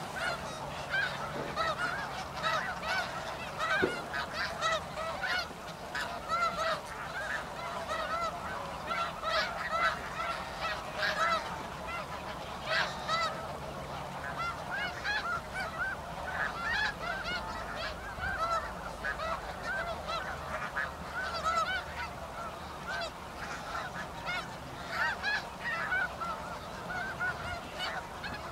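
A large flock of snow geese calling, many short honking calls overlapping in a dense, continuous chorus.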